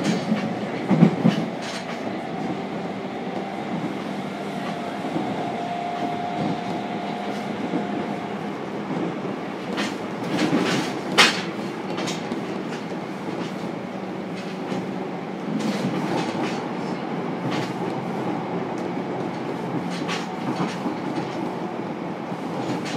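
Running sound inside a JR Kyushu 303 series electric train's motor car between stations: a steady rumble of wheels on rail, with sharp clicks as the wheels pass over rail joints, the loudest about eleven seconds in.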